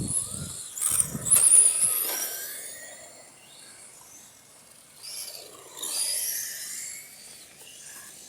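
Radio-controlled model cars racing past, their motors giving a high-pitched whine that rises and falls as each car goes by, loudest about a second and a half in and again around six seconds. A few dull low thumps come in the first two seconds.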